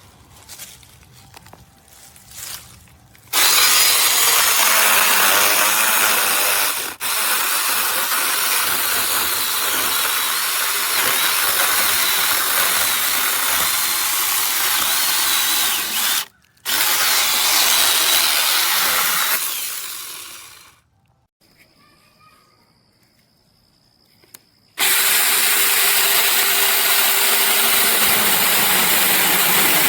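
Seesii cordless electric mini chainsaw running at full speed. It starts about three seconds in and cuts out for a moment near the middle. It then winds down and stops for a few seconds before starting up again about five seconds before the end.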